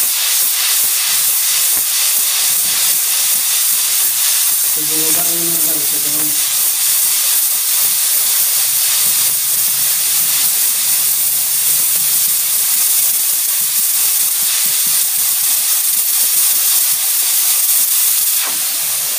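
Stovetop pressure cooker venting steam through its release valve after cooking: a loud, steady hiss as the pressure is let off, easing slightly near the end.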